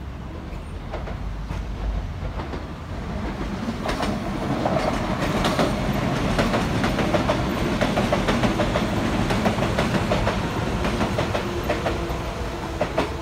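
Kintetsu electric trains passing on elevated track, wheels clicking rhythmically over the rail joints with a steady hum beneath. The sound swells about four seconds in as a commuter train runs close by, and stays loud through most of the rest.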